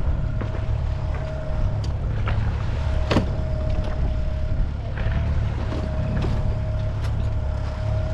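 A small sailboat under way, with a steady low rush of wind and water along the hull and a thin steady tone running through it. A few sharp knocks from gear aboard stand out, the loudest about three seconds in.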